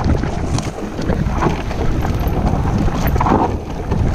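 Wind buffeting the microphone over the rumble of a mountain bike rolling fast along a rough dirt singletrack, with irregular rattles and knocks from the bike jolting over the ground.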